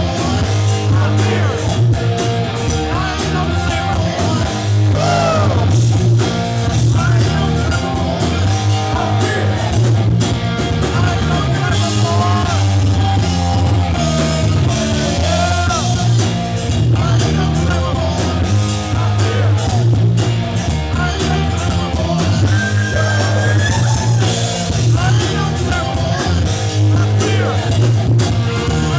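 A rock band playing live and loud: a singer over electric guitar, bass and drums, with a steady heavy bass line and regular drum hits.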